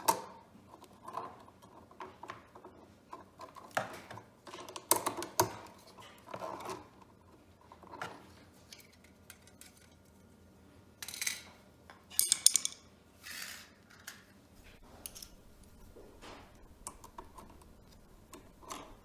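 Hand tools working the copper wires at a wall outlet: irregular small metal clicks, taps and short scrapes, with the loudest cluster of scraping rasps about twelve seconds in.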